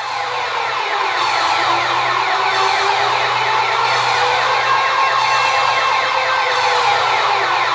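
Loud electronic wake-up alarm tone, a rapidly repeating sweep over a slower wavering tone, swelling up in the first second and then holding steady.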